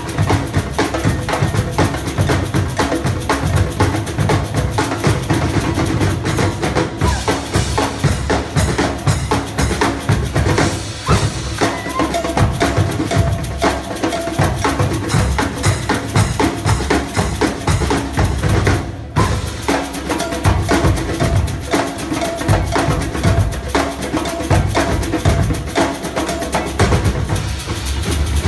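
Percussion ensemble playing drums together in a dense, fast rhythm, with a brief break about two-thirds of the way through.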